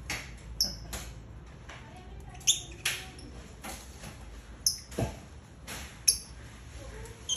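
Lovebirds giving short, sharp, high squeaky chirps at irregular intervals as a pair mates, the loudest about two and a half and six seconds in. A dull knock about five seconds in.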